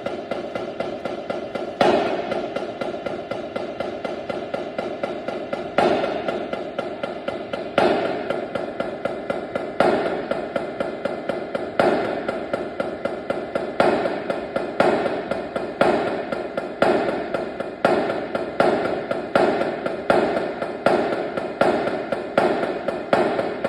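Percussion playing a fast, steady pattern of sharp strikes, about five a second, with a louder accented hit every two seconds that comes every second from about halfway through.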